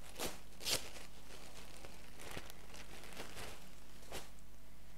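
Plastic packaging crinkling and rustling in short bursts as clothes are handled and pulled out of it, loudest just under a second in, with a few fainter rustles later.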